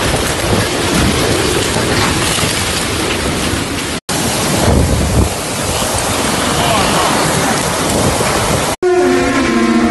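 Storm wind and heavy rain rushing loudly and continuously, with gusts, across a few abruptly cut clips. Near the end a low, horn-like tone sets in and slowly falls in pitch.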